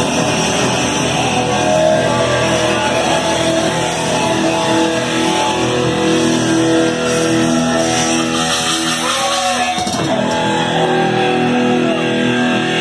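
Live speed-thrash metal band playing: distorted electric guitars and bass holding long ringing notes, with a few bent, gliding notes about eight to ten seconds in.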